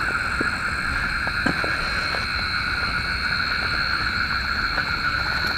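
Dense night chorus of frogs calling from the rice paddies: a steady, unbroken drone of many overlapping high-pitched calls, with a few faint knocks.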